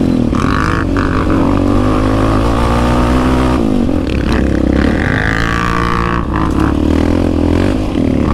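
Yamaha Raptor 700 single-cylinder engine being ridden hard, its pitch rising and falling repeatedly with throttle and gear changes, with other ATV engines close by, one with a loud exhaust can.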